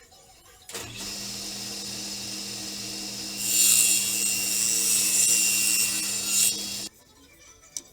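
An electric woodworking power tool switches on about a second in and runs with a steady hum. From about the middle it works into the wood with a louder, higher noise for about three seconds, then it is switched off near the end.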